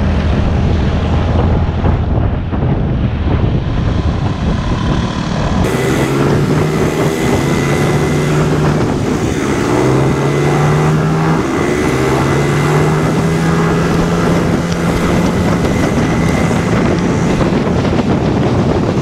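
Small automatic scooter's engine running at road speed, its hum stepping up and down in pitch, under a steady rush of wind on the helmet-mounted microphone. About six seconds in the sound changes abruptly to a brighter mix.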